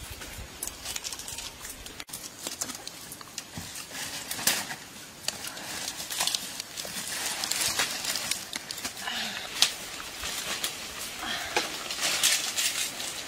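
Leaves and branches of a star apple tree rustling as a person climbs up into it, with irregular sharp snaps and taps of twigs and bark throughout.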